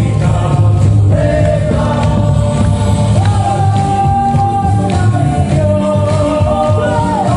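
Drum music with chanted singing: a steady drumbeat under long held sung notes that slide from one pitch to the next.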